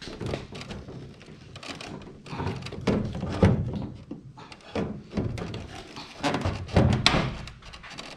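A pickup truck's plastic light housing being wiggled and worked loose by hand, giving a run of irregular knocks and thunks, the loudest about three and a half and seven seconds in.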